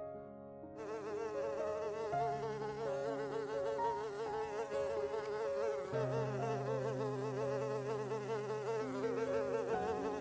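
A honeybee buzzing steadily, its pitch wavering, starting about a second in, over soft held tones that shift pitch a couple of times.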